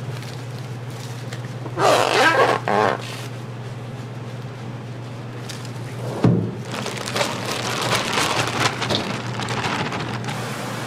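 Plastic cling wrap pulled off its roll and stretched over a stainless-steel hotel pan, squeaking sharply about two seconds in, then a thump and a few seconds of crinkling as the film is pressed down around the pan. A steady low kitchen hum runs underneath.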